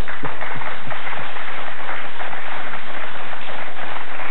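Studio audience applauding, a steady wash of clapping that stops just as talk resumes.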